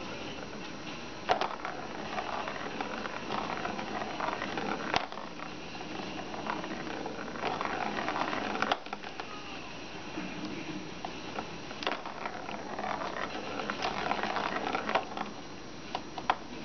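A ball rolling and rattling around a plastic circular track cat toy as a kitten bats it, with several sharp plastic clicks scattered through.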